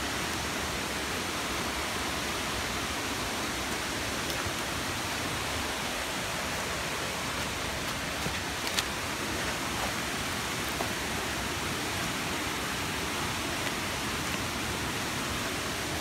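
Steady rushing of a rocky mountain stream near a waterfall, with a single sharp click about halfway through.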